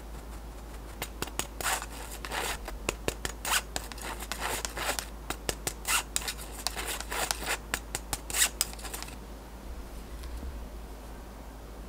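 Fine-mesh metal sieve shaken over a glass bowl, sifting flour: a quick, irregular run of rasping ticks that stops about nine seconds in.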